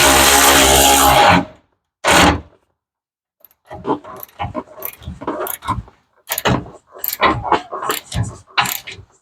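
A power tool running loud and steady, stopping about a second and a half in, with one short burst again soon after. Then a run of short, irregular metallic clicks and knocks from hand work on the bumper fasteners.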